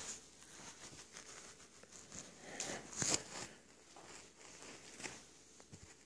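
Close scratchy rustling and scuffing as a small long-haired dog's fur and muzzle rub against the phone's microphone, loudest about three seconds in.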